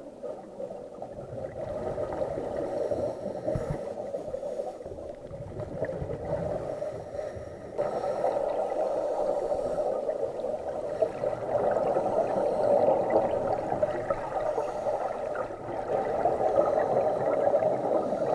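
Muffled underwater sound picked up through a camera housing: scuba divers' exhaled bubbles gurgling over a steady, dull wash of water noise, with irregular low rumbling swells. The sound steps louder about eight seconds in.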